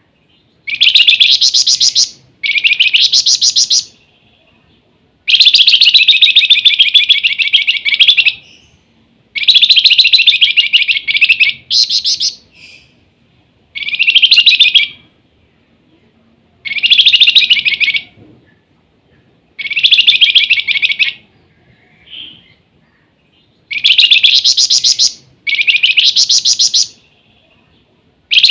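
Flamboyan (wergan jawa) songbird singing in full voice. It gives repeated bouts of rapid, high-pitched notes, each bout one to three seconds long, with short pauses between them.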